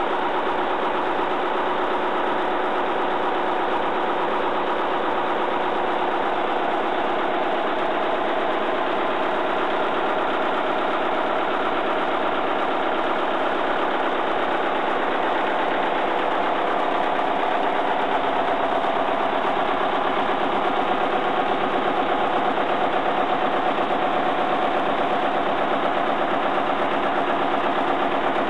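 A 1951 McLaren four-cylinder, 16-valve diesel engine of about 14 litres, driving a 55 kW Brush generator set, running steadily with an even rhythm. It gets a little louder in the last third.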